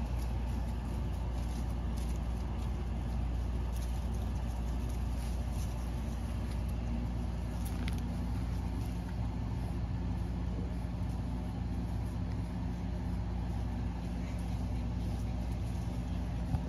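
Steady low mechanical hum of running machinery, with a few faint ticks over it.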